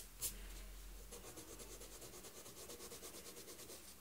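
Green colored pencil shading on sketchbook paper in quick back-and-forth strokes, a fast, even scratching, after two light knocks at the very start.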